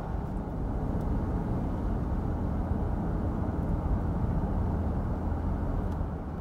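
Steady low road and engine noise of a car driving, heard from inside the cabin.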